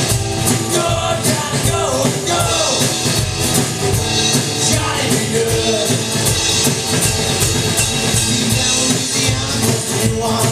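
Live rock and roll band playing: strummed acoustic guitar over a drum kit keeping a fast, steady beat, with some vocals from the singer.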